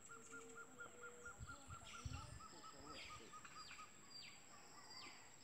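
Faint riverside birdsong: a fast run of short chirps that fades out, then a series of repeated falling whistles, over a steady high-pitched whine. A couple of low thumps come about two seconds in.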